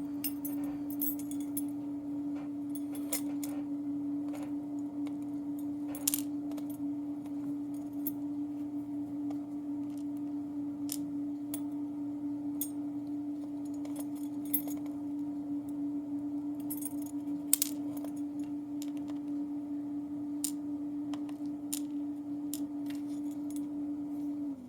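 A steady hum, with small metallic clicks and taps scattered over it as lock pins, springs and parts are handled and dropped out of a padlock core. The hum cuts off suddenly near the end.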